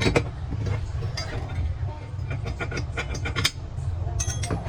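Metal parts clinking and knocking in a series of light, irregular clicks over a steady low hum, with a denser cluster of clinks past the middle and again near the end.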